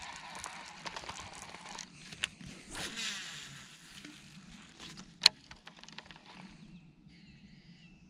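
Handling noise from a baitcasting rod and reel: rustling for the first couple of seconds, a swish about three seconds in, and one sharp click about five seconds in. Birds chirp faintly near the end.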